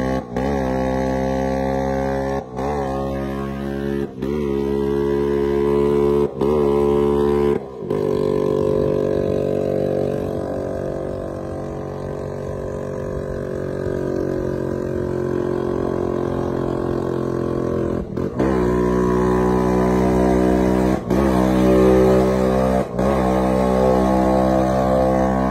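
Old two-stroke Vespa scooter engine running steadily under a heavy load while riding, its note broken by short dips every second or two.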